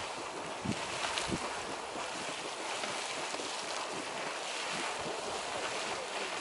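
Erupting hot-spring geyser: a steady rush of splashing water and spray, with wind thumping on the microphone twice about a second in.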